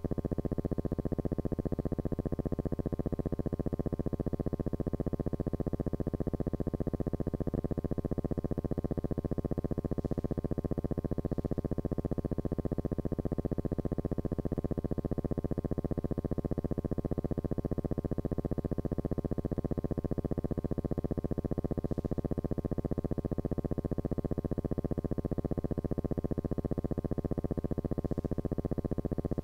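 A steady, buzzing electronic drone held on one pitch without a break, with a slight waver.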